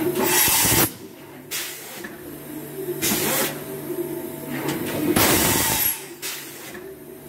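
Mazak Variaxis i-600 machining centre going through an automatic tool change: five short bursts of compressed-air hiss, the first and fourth the loudest, over the steady hum of the running machine.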